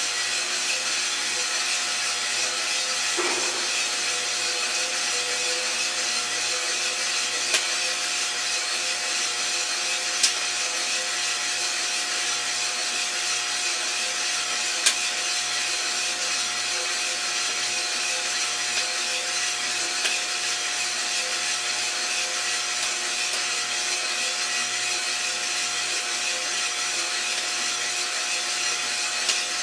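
Iroaster 600 coffee roaster running mid-roast: a steady whir of its fan and drum motor with beans tumbling inside. A few isolated sharp pops sound several seconds apart.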